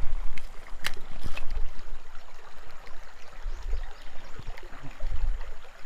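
Creek water running and trickling steadily, with a few low rumbles and a couple of sharp clicks about a second in.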